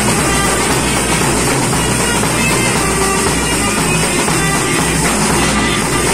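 Street band playing: snare-style side drums and a bass drum beating a steady rhythm while clarinets play a melody of held notes.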